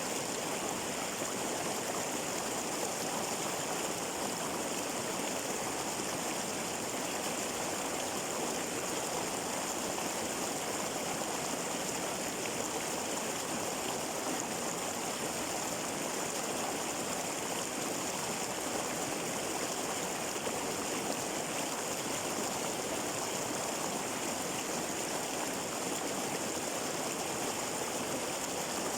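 Flowing water running steadily, an even, unbroken rush of a stream over rocks.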